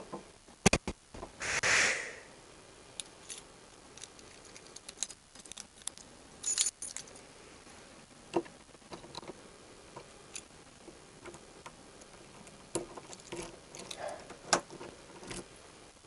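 Digging in stony rubble: scattered sharp clinks and knocks of stones and hard fragments striking each other and the digging tool, with a brief scraping rush near the start. The loudest knocks fall within the first second.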